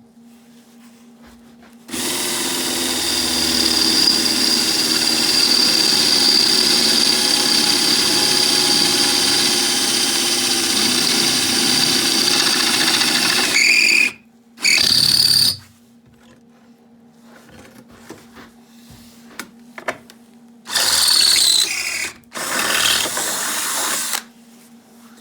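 Handheld electric power tool running on metal: one long steady run of about twelve seconds with a high whine, then three short bursts.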